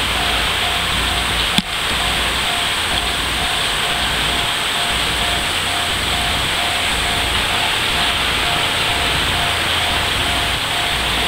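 Steady high-pitched drone of summer insects such as cicadas, with a tone pulsing on and off at an even rate. A single sharp click about a second and a half in.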